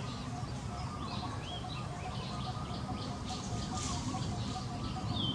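Many short, high chirps and calls, with a faint pulsing call repeating about four times a second, over a steady low rumble of background noise.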